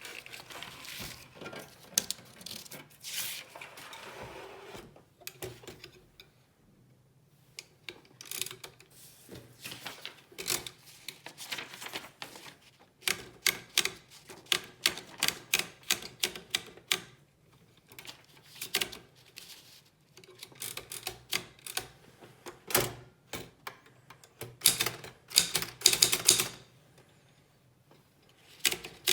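Rooy portable manual typewriter being typed on: runs of sharp key strikes, several a second, in bursts broken by short pauses, with the hardest strikes near the end.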